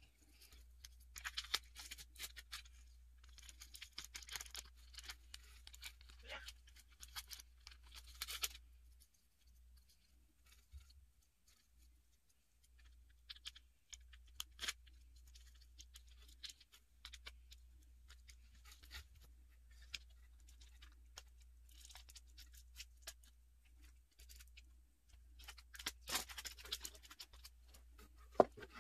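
Close handling of cardboard and jute twine: irregular small rustles, scrapes and taps, busiest in the first eight seconds and again near the end, sparse in between, over a faint low hum.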